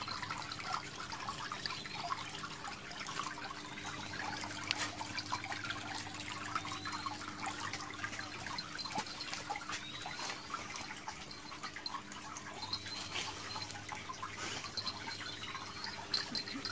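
Water trickling and dripping, with many small drips and short, high, rising chirps about every two seconds.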